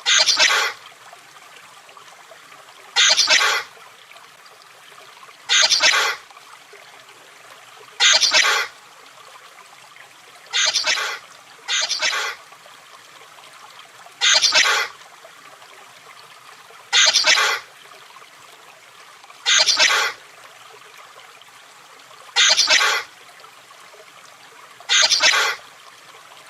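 Chameleon giving short hissing bursts, each well under a second long, repeated about every two and a half seconds, with two coming close together about halfway through.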